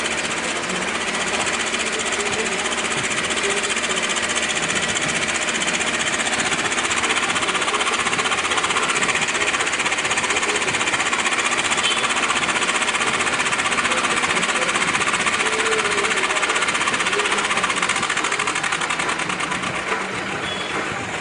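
Mini excavator's diesel engine running hard at high revs with a steady, rapid chatter as it works its hydraulics, lifting the machine onto a truck bed. The sound eases slightly near the end.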